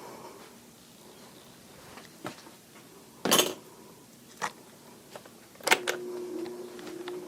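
A few sharp clicks and knocks, like a fan's switch and housing being handled, then about six seconds in an electric fan motor starts with a steady hum.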